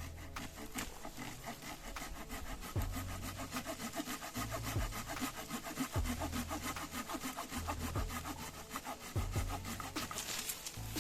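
Parkside garden hand saw cutting through a branch about 3 cm thick, with rapid, even back-and-forth strokes of the blade in the wood. It is a smooth cut.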